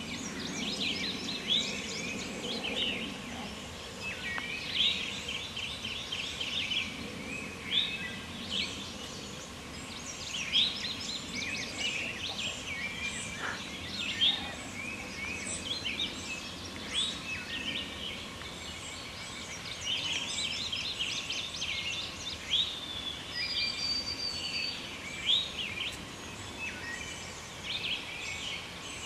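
A chorus of many songbirds calling at once in spring woodland: overlapping chirps and rapid trills with no let-up, and a clear high whistled note a little past the middle.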